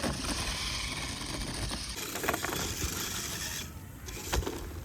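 Small electric motor and drivetrain of a radio-controlled car running with a steady high whine, which eases off about three and a half seconds in. A few knocks, the clearest a thump near the end.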